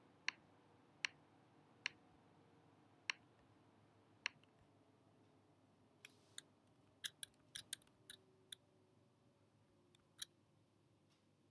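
Computer mouse clicks as anchor points are placed along a traced path: single sharp clicks about once a second at first, then a quicker run of clicks a little past halfway, and two more near the end.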